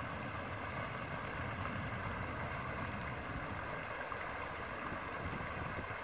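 Water spilling over a low weir on a small stream: a steady, even rushing.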